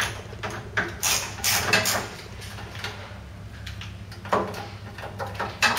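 Phillips screwdriver undoing the cover screws of a door closer: a few short scraping and clicking sounds, clustered about a second in and again near the end.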